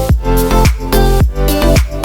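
Background music with a steady dance beat, about two strong bass-drum hits a second under sustained pitched notes.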